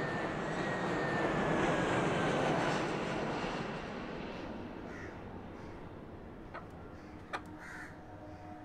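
Jet airliner passing overhead: a broad rushing roar with a thin whine that slowly falls in pitch, loudest about two seconds in and then fading away. A couple of short, faint calls are heard as it dies down.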